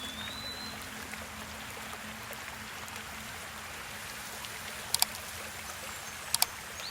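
Tavignano mountain river flowing steadily. A short high whistle comes right at the start, and two sharp double clicks come about five and six and a half seconds in.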